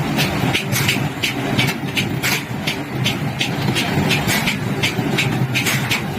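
Metalworking machinery running with a steady hum, overlaid by sharp clicks about three times a second.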